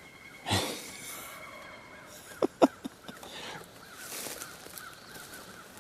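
Crows cawing in the woods, with a faint repeated bird call in the background. Three sharp knocks come in quick succession about two and a half seconds in.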